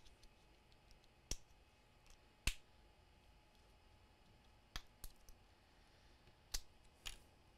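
A Lexar JumpDrive TwistTurn flash drive's plastic casing being pried open by hand with a small blade: a handful of short, sharp plastic clicks and snaps at irregular spacing, the loudest about two and a half seconds in.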